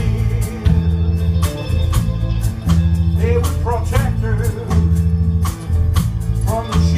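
A band playing live: strummed acoustic guitars and drums over held bass notes, with short bending melodic phrases a few seconds in and again near the end.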